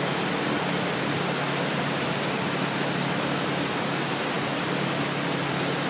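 Steady fan noise, an even rushing with a low hum under it; no landings or footfalls stand out.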